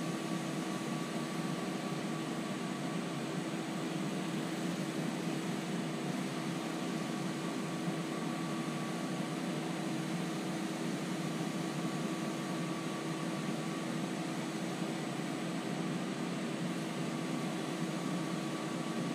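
Wood lathe spinning at high speed with a steady hum and a faint higher whine, as a rag is pressed against the turning wooden bowl to heat it and burn in shellac friction polish.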